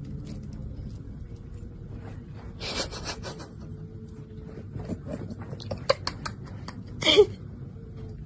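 Thin plastic glove and bag rustling and crinkling as a hand holds out a lump of fruit, with a quick rustle about three seconds in and a cluster of sharp crackles past the middle. Near the end comes a short, loud voiced cry, the loudest sound here.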